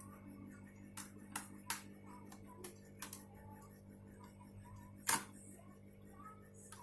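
A handful of sharp clicks and taps from a screwdriver and the laptop's plastic case as the hard-drive cover is worked open, the loudest about five seconds in.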